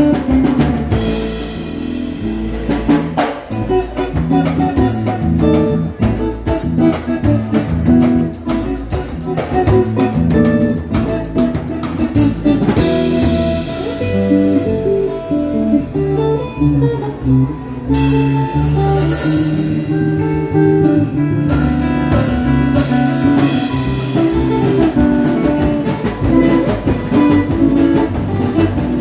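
Instrumental jazz played live by a trio: guitar over a drum kit, with steady cymbal and drum strikes throughout.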